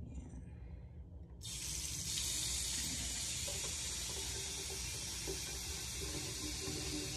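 Bathroom sink tap turned on about a second and a half in, then water running steadily into the basin.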